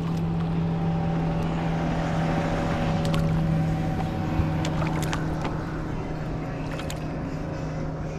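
A boat motor running steadily with an even hum, swelling a little midway, with a few light clicks.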